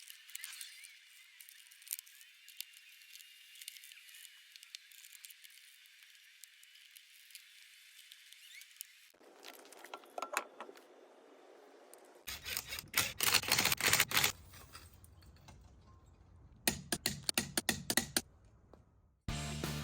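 Irregular clicking and rattling, faint at first and then in louder clustered bursts, with music starting right at the end.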